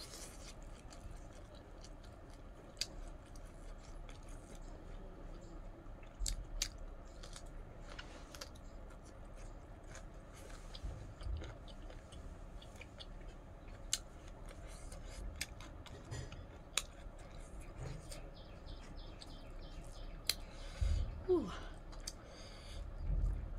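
Close-miked eating by hand: chewing of chicken curry and rice, with many short mouth clicks and smacks and a few low thumps. About 21 seconds in there is one short falling squeak.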